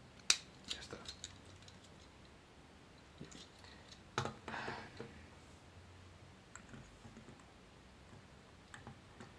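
Plastic clicks and taps from Transformers Groove action figures being handled and posed, with joints and parts clicking and a plastic figure knocking on a wooden tabletop. There are several sharp clicks in the first second and a half and a louder one about four seconds in.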